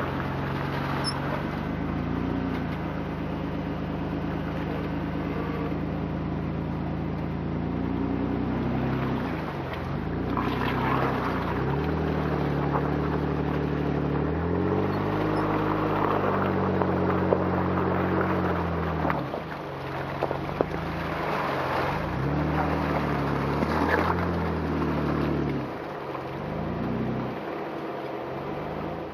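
Jeep Wrangler JK engine revving up and down as it crawls through muddy ruts, the engine note rising and falling several times and running highest about halfway through.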